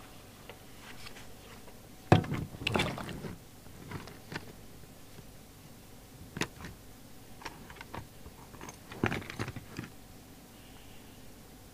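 Handling noises from unpacking a boxed CB radio set: a sharp knock about two seconds in, a second of crackly rustling of packaging, then scattered clicks and taps with a small cluster near the end.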